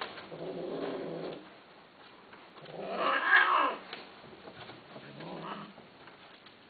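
Long-haired Persian-type cat yowling. A low, drawn-out moan comes first, then a loud rising-and-falling yowl about three seconds in, and a shorter, fainter cry near the end.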